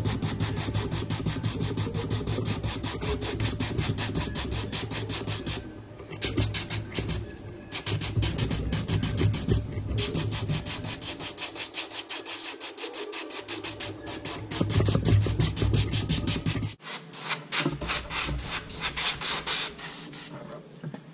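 Airbrush spraying paint, with the hiss of compressed air and the fast, even pulsing of the small air compressor that feeds it.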